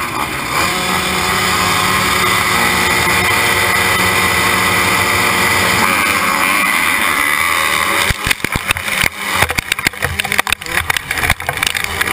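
A gate full of motocross bikes, among them the rider's Yamaha YZ125 two-stroke, running held revs at the start line, then launching about eight seconds in: the engines rev hard and the sound turns choppy and jagged as the bikes race off.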